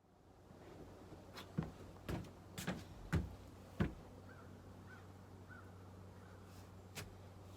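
A handful of sharp knocks and taps, about five in the first four seconds and one more near the end, over a steady low hum, with a few faint short chirps in between.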